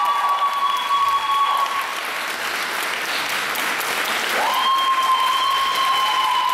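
Audience clapping and cheering at the end of a pole sport routine, with long high-pitched whoops held over the clapping: one fading out early, another rising in about four and a half seconds in.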